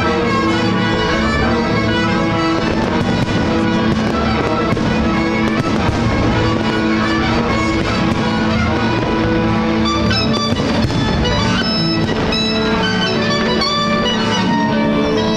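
Music with instruments plays throughout, with firework bangs and crackles mixed in over it, most of them in the second half.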